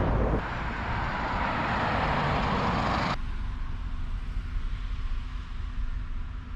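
Road noise of a Mitsubishi Delica van on the move, a steady broad hiss of tyres and wind that cuts off abruptly about three seconds in, leaving a quieter, lower rumble with a faint steady hum.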